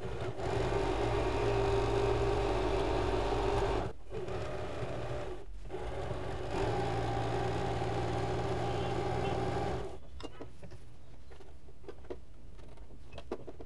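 Usha Janome Fashion Maker electric sewing machine running steadily, sewing a close zigzag stitch around an appliqué patch. It pauses briefly about four seconds in and again at about five and a half seconds, then stops about ten seconds in, leaving only a few light clicks.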